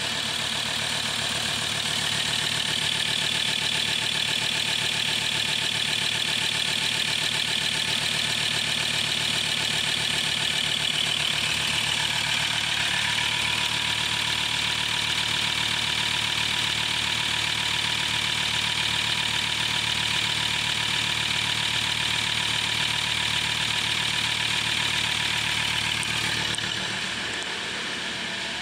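Ford Ranger PX3's 3.2-litre five-cylinder turbo diesel idling steadily, heard close up from the open engine bay. It gets somewhat quieter near the end.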